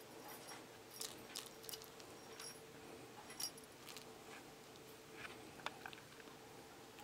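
Faint scattered ticks and rustles of a kitten batting at and tussling with a feather teaser toy on a shaggy blanket, with a few light metallic tinkles over a steady low hum.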